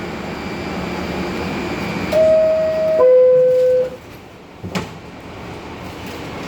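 R62A subway car's door-closing chime: two sustained descending tones, a higher note and then a lower one, each just under a second, over the steady rumble of the standing train. About a second after the chime, the doors shut with a sharp thud.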